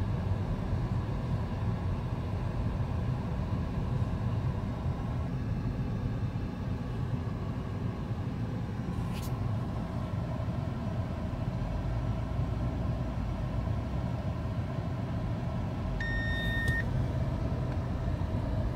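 Low, steady road and traffic rumble heard inside the cabin of a Nissan Leaf creeping along in stop-and-go traffic. There is a short click about nine seconds in, and a single steady electronic beep lasting under a second near the end.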